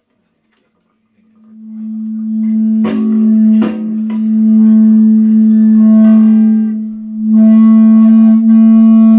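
Amplified guitar run through effects, holding one steady low note as a loud drone that swells in about a second in. Two sharp plucked strikes cut across it shortly after, and it dips briefly near the end before swelling back.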